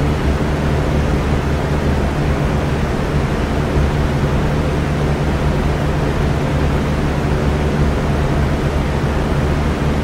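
Electric fan running steadily: a constant rush of moving air with a low, even motor hum underneath.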